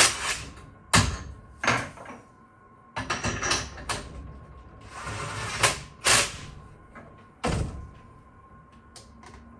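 Manual tool change on a CNC benchtop mill with the spindle stopped: a series of sharp metal clunks and bangs, about eight in all, as tool holders are knocked out of the spindle, fitted and set down on the steel table. A faint steady high whine sounds underneath.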